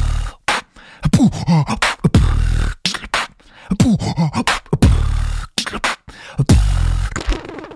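Beatboxing: a repeating vocal beat of sharp clicks and hissing snares, a falling pitched vocal sweep and a deep buzzing bass, the pattern coming round about every two and a half seconds, three times.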